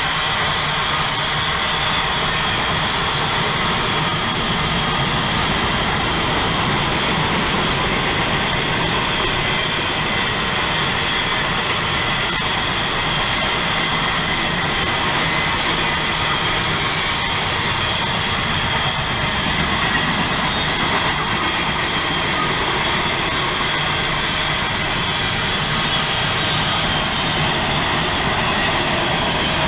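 Freight train of hopper cars rolling past, a steady noise of steel wheels running on the rails.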